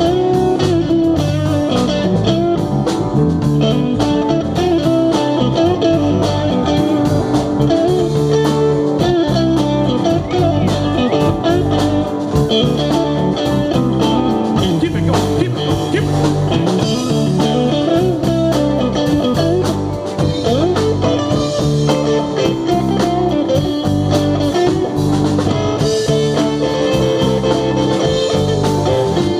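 Live rock band playing an instrumental passage: an electric guitar plays a bluesy lead line over drums.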